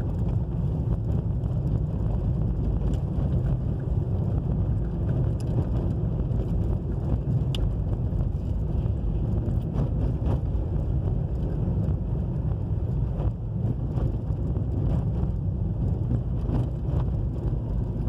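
A car driving on a dirt road makes a steady low rumble of tyres and engine, with scattered light clicks and knocks over the uneven surface.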